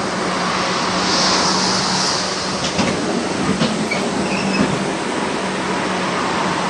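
An LVS-86K tram on the move: wheels rumbling on the rails over a steady low hum, a high hiss about a second in, then a few knocks over rail joints with brief faint squeals in the middle.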